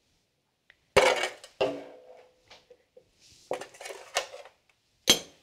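Kitchenware clinking and knocking as broiled pineapple pieces are gathered off a metal baking sheet into a glass compote dish. There are about five sharp knocks, and the first rings briefly.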